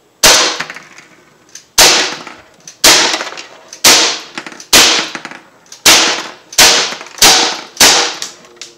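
Umarex Glock 19 Gen 3, a non-blowback .177 CO2 BB pistol, fires nine shots of steel BBs at uneven intervals, the shots coming faster toward the end as the magazine is emptied into plastic milk jugs. Each shot is a sharp pop with a short ring after it.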